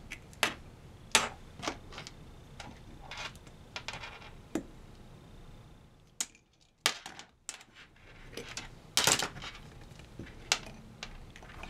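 Irregular sharp clicks and clacks of banana plugs and alligator clips being unplugged, clipped and handled while test leads are swapped from one cable to the next, with the loudest cluster about nine seconds in.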